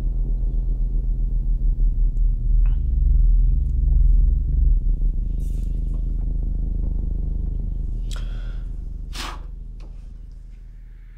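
Low, throbbing rumble of a horror-film sound-design drone, swelling around three to four seconds in and then fading away over the last few seconds. A few short swishing sounds cut through it, the brightest near the end.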